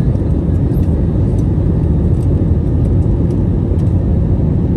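Steady low roar of a jet airliner's turbofan engines and rushing air, heard from inside the passenger cabin.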